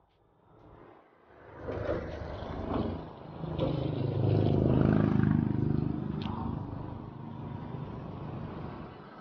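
Road traffic: a passing motor vehicle's engine running with road noise, loudest about four to five seconds in, with a few clicks and rattles. It sets in after a second or so of near quiet.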